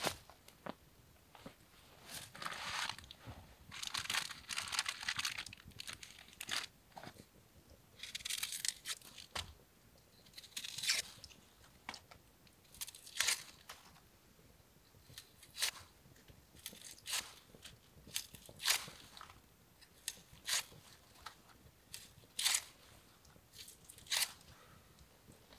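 Thin plastic bag crinkling and rustling as food is handled inside it. The rustling comes in spells through the first half, followed by single sharp crackles every second or two.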